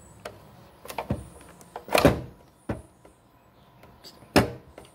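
Hands knocking and tapping against the plastic housing of a Makita battery charger: a handful of separate knocks, the loudest about two seconds in and another just past four seconds.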